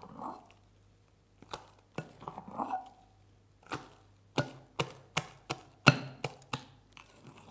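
Fluffy shaving-foam slime being squeezed and stretched by hand in a glass bowl, giving about a dozen sharp, wet pops and clicks at an uneven pace, most of them in the second half. The loudest comes about six seconds in.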